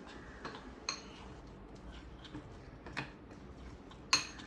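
Metal spoon stirring thick gram-flour batter in a glass bowl, clinking sharply against the side of the bowl a few times. The loudest clink comes near the end.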